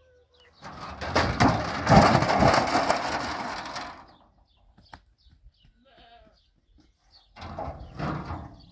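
A thin sheet-metal panel thrown down onto stony ground, clattering and scraping across the rocks for about three seconds. A shorter scrape of metal on stone comes near the end.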